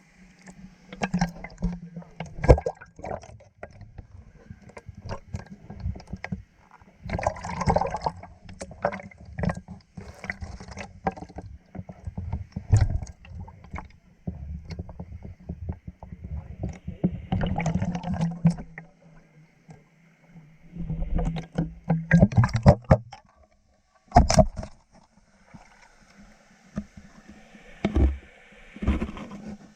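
Water splashing and sloshing close to the microphone, with irregular knocks and bumps.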